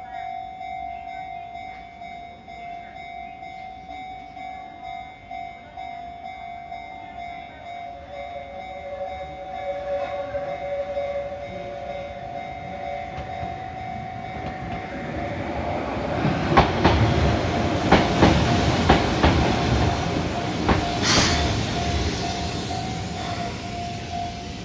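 Level-crossing warning bell ringing steadily while a Keihan 600-series two-car tram approaches and pulls into the station. The tram's rumble and the clatter of its wheels over rail joints and the crossing grow loud over the second half, with sharp clacks.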